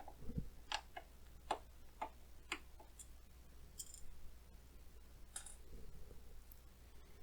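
Faint, irregular metallic clicks and ticks of a #2 Phillips screwdriver working the power supply's mounting screws out of the organ's chassis.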